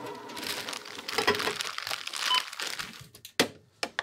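Goods being handled at a shop checkout: packaging crinkling and items knocking on the counter, a short electronic checkout beep a little past halfway, then a few sharp clicks near the end.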